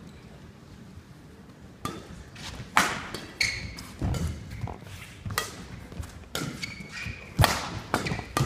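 Badminton rally: rackets striking a shuttlecock in sharp cracks roughly a second apart, starting about two seconds in.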